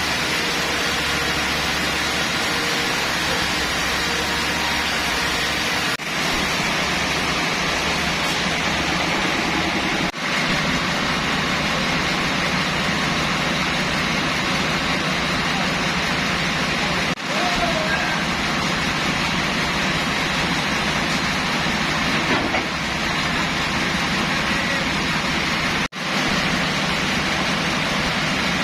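Sawmill machinery running steadily as a dense, even mechanical noise, cut off for an instant a few times.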